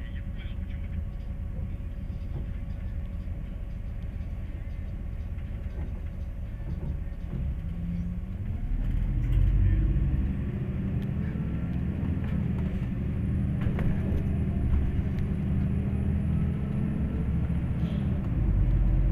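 MAZ 203 city bus heard from inside the cabin: a steady low engine rumble, then about eight seconds in the engine note grows louder and rises in pitch, stepping as the bus pulls away and picks up speed.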